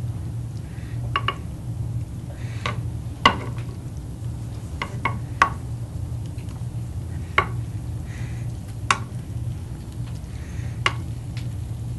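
Slotted plastic spatula spreading a beef, bean and corn filling in a glass baking dish, clicking and tapping against the glass every second or so, the sharpest knock about three seconds in. A steady low hum sits underneath.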